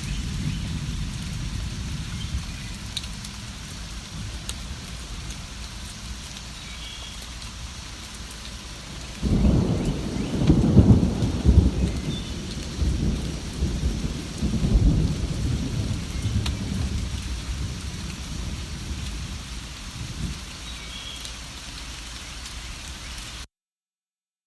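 Steady rain falling, with a roll of thunder that breaks in suddenly a little over a third of the way in and rumbles on for several seconds before fading. Faint bird chirps come through now and then, and the sound cuts to silence near the end.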